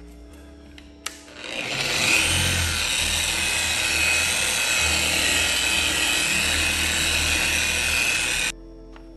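Handheld electric car polisher running with a blue foam pad spinning against the paint, compounding the door panel. It spins up about a second in after a click, runs loud and steady, then stops suddenly near the end.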